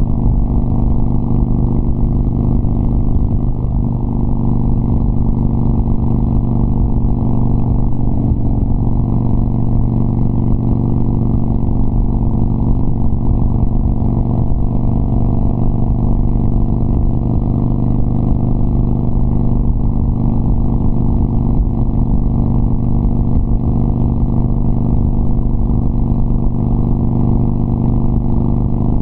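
Harley-Davidson Sportster Iron 1200's air-cooled V-twin running through KhromeWerks 3-inch slash-cut exhaust mufflers, heard from the saddle while cruising at a steady highway speed. The engine note is loud, deep and steady, with little change in pitch.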